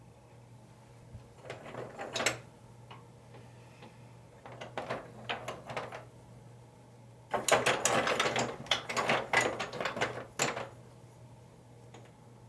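Handling noise from camera gear being adjusted while the shot is reframed: three bursts of mechanical clicking and rattling, the longest and loudest a little past the middle, over a faint steady low hum.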